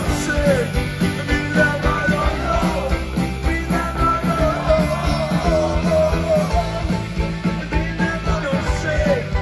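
Live rock band playing through a large open-air PA, heard from within the audience: a dense bass and drum beat under guitars and a melody line.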